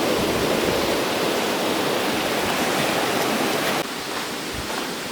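Rushing river water, a steady rush that drops suddenly to a quieter rush near the end.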